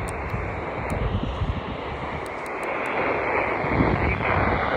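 Steady static hiss from a weather radio receiving a weak, distant NOAA Weather Radio broadcast, with a low rumble underneath and a few faint ticks.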